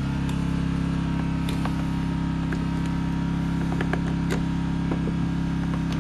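A generator engine running steadily at an even idle, with a few light clicks and taps over it.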